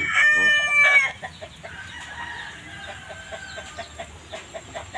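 Rooster crowing: the loud end of a long, held crow in the first second, then a fainter crow follows.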